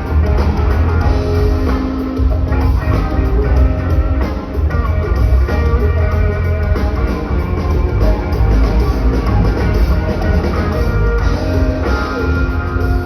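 Live rock band playing a song: electric guitar lines over bass and a drum kit keeping a steady beat, loud and continuous.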